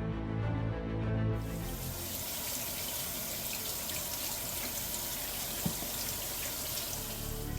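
Kitchen faucet running water into a newly installed sink to test its drain plumbing for leaks: a steady rush that starts a little over a second in and cuts off near the end, with background music at the start.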